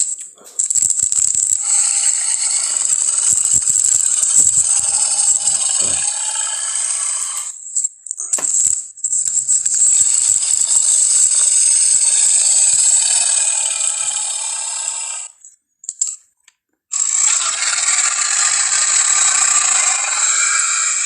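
Film monster sound effect: three long, harsh calls of several seconds each, with short breaks between them, the sound carrying mostly in its upper range.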